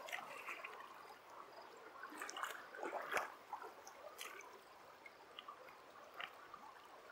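Faint splashing and trickling of shallow creek water around a king salmon held by hand in the shallows, with a few small splashes two to three seconds in.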